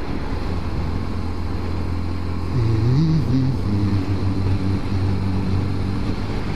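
Motorcycle engine running while riding, with steady wind and road noise. About two and a half seconds in, the engine pitch glides and steps up and down, and it is a little louder from then on.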